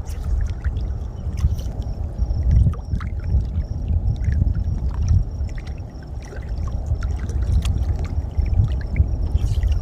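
Wind buffeting the microphone outdoors, a low rumble that rises and falls unevenly. Scattered small clicks and a faint, high, evenly repeating chirp sit over it.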